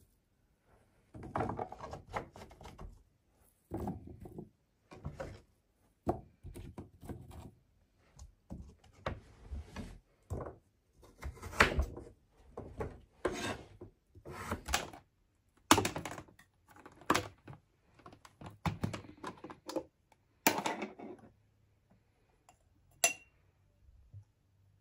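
Kitchen food-prep sounds: a long run of separate knocks, taps and scrapes of a knife, hands and cut vegetables on a plastic chopping board and in a metal roasting tray. They thin out about three seconds before the end, with one sharp click.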